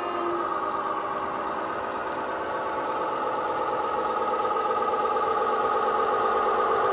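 Bachmann Class 43 Warship model's DCC sound decoder playing the diesel-hydraulic locomotive's engine sound through its small onboard speaker: a steady engine note with several layered tones, growing louder as the model approaches.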